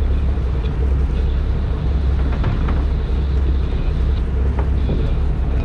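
Fishing boat's engine running with a steady low drone, with a few faint clicks from the deck.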